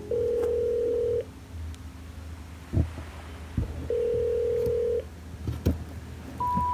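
Background music of plain electronic beep tones: two held tones of about a second each, then three short beeps stepping up in pitch near the end. A few soft knocks from a cardboard box being handled sound between them.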